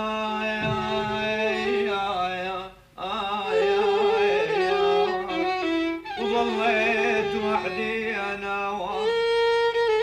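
Arabic song music in an instrumental passage between sung lines, with a violin carrying the melody.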